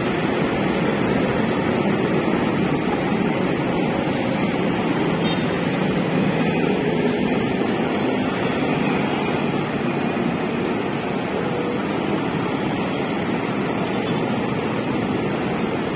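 Steady din of heavy road traffic: many motorcycles and cars passing, their engines running together.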